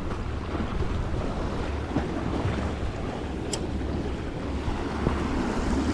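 Wind buffeting the microphone over the wash of sea waves against shore rocks, a steady rumbling noise. A short sharp click about three and a half seconds in.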